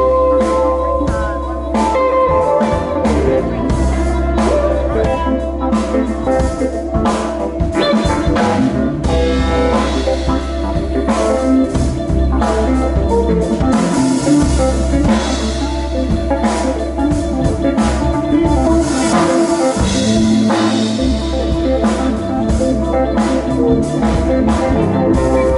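A rock band playing live: electric guitars over a drum kit, with frequent drum hits and a heavy low end.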